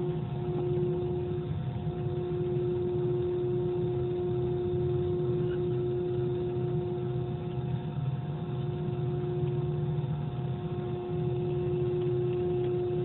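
Airbus A320-family airliner's jet engines running at taxi power, a steady whine over a low hum, heard from inside the cabin.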